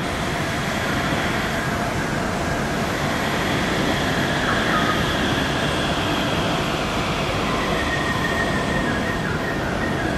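Yurikamome rubber-tyred automated guideway train pulling into the station: a steady running noise that swells as it arrives, with a thin high whine joining in during the last couple of seconds as it slows.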